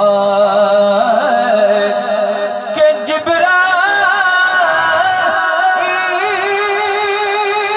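A man singing a naat through a microphone and PA loudspeakers, drawing out long, wavering held notes with no words, unaccompanied. There is a short knock about three seconds in.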